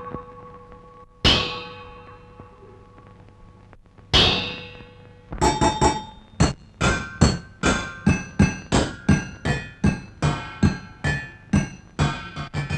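Metal cooking pots struck like drums as a film song's percussion: two single ringing clangs, then from about five seconds in a quick steady beat of clanging strikes, roughly three a second.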